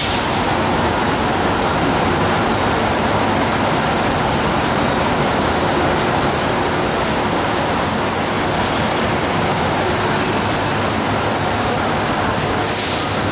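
Steady, loud noise of industrial machinery running in a large factory hall, with a short high hiss near the end.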